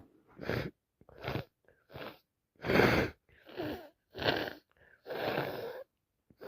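A woman with a heavy head cold in a fast sneezing fit: about seven short sneezes and gasping breaths in quick succession, the loudest about three seconds in.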